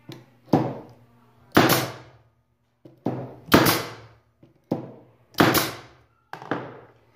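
MTX pneumatic brad nailer firing brads into hardwood: about seven sharp shots, roughly one a second, each dying away over about half a second.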